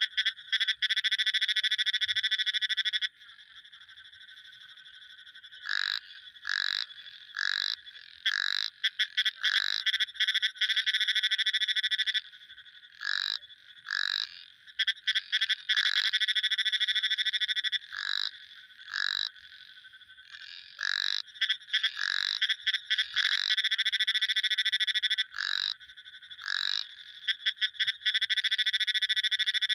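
Frogs calling: long rapid trills lasting two to three seconds alternate with short, quick calls repeated about once a second.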